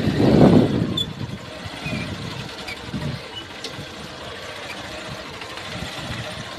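Motorcycle running as it is ridden along a sandy track, with wind gusting on the microphone, loudest in the first second and then settling to a quieter, uneven noise.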